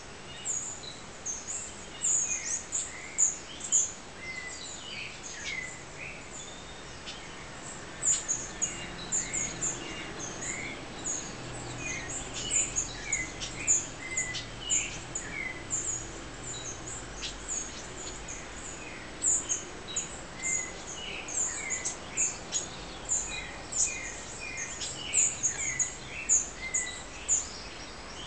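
Birds chirping in a dawn chorus: a dense, continuous run of short, high-pitched chirps and calls.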